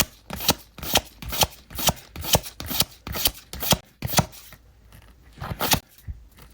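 One Piece trading cards being flipped through one at a time, each card making a short crisp snap about twice a second. The snaps thin out after about four seconds, with a couple more near the end.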